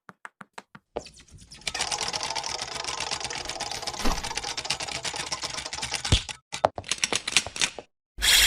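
Rapid clicking like keys being typed. It opens with about five separate clicks a second, then runs for about five seconds as a dense clatter broken by two heavier knocks, and thins out to scattered clicks. Near the end a bright, tuneful electronic sound cuts in.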